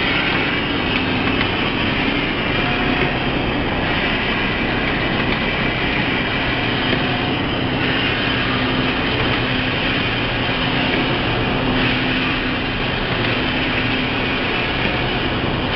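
Automatic lunch box filling and sealing machine running: a steady mechanical hum with a held low tone and a broad hiss. The higher part of the noise shifts about every four seconds as the machine cycles.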